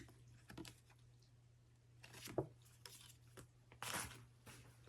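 Faint, scattered rustling and light clicks of paper and packaging being handled, in a few short spells with quiet between, the loudest about four seconds in.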